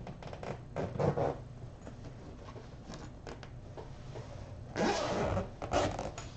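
Zipper on a quilted fabric bag being pulled open in a series of short runs, loudest near the end as the front flap comes free.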